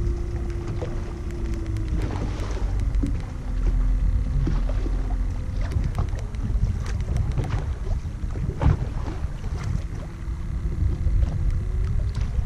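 Small boat on open water: wind buffeting the microphone and water slapping against the hull in irregular splashes, under a faint hum from a MotorGuide electric trolling motor that drops in pitch about two seconds in and rises again near the end.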